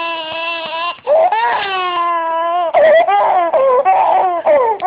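Baby crying in two long, held wails, then shorter broken cries from about three seconds in.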